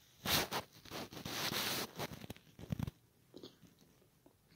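Chewing a bite of pizza crust close to the microphone: loud, noisy chewing for about the first three seconds, then quieter.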